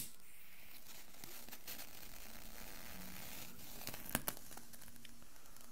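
A click, then a faint steady hiss as a lighter flame is held to a small methylated-spirit burner to light it, with a couple of light clicks about four seconds in.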